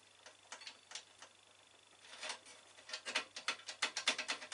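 Clicking of a Switzer scroll saw's controls as they are handled and turned: a few scattered clicks, then a fast run of them near the end.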